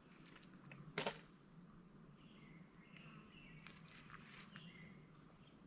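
Near silence with a short sharp click about a second in and faint, high bird chirps in the background. The trimmer's engine is not yet running.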